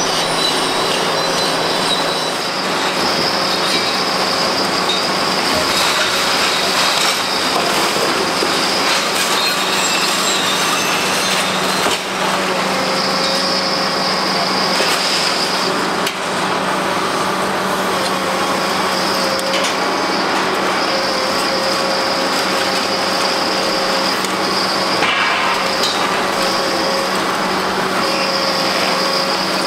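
Kobelco SK850 demolition excavator working its crusher attachment on concrete: the engine and hydraulics run steadily under load, with high whining tones that come and go every few seconds and occasional knocks of concrete breaking.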